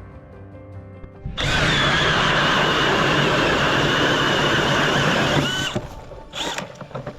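Power ice auger drilling through lake ice: a loud steady whine that starts about a second and a half in and winds down with a falling pitch near the end, followed by a couple of short revs.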